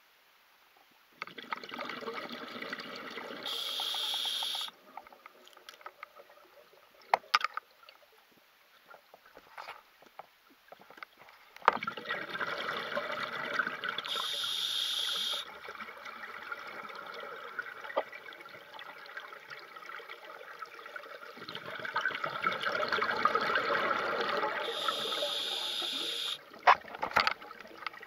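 Scuba diver breathing through a regulator underwater: three rushes of exhaled bubbles, each ending in a short, higher hiss as the diver inhales, with a few sharp clicks in the quieter spells between breaths.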